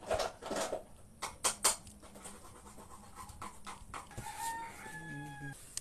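Scissors snipping through raw octopus, a few sharp clicks in the first two seconds. From about four seconds in a rooster crows, one long drawn-out note that falls slightly in pitch.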